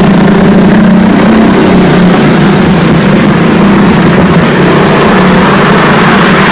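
Loud, steady rumble of road traffic, with a low hum throughout.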